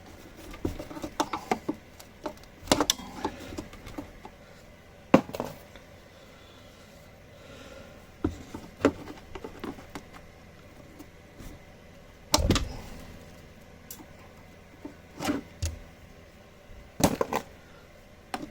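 Hand tools prying and twisting plastic retaining pins out of a car's inner wheel arch liner: scattered sharp clicks and knocks every second or few, with some small rattling between.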